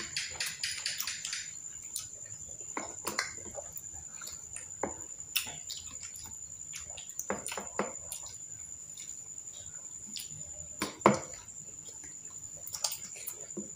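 Mouth sounds of people eating fish balls and other fried street food: wet chewing and smacking, with scattered clicks of forks and skewers against a plastic sauce container. One louder knock comes about eleven seconds in.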